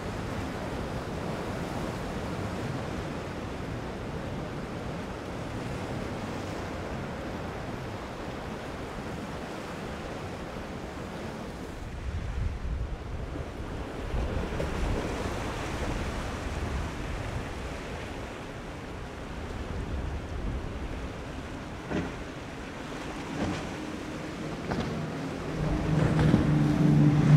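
Waves breaking and wind on the microphone. Near the end, a Contender center-console boat runs past close, and the steady hum of its outboard engines becomes the loudest sound.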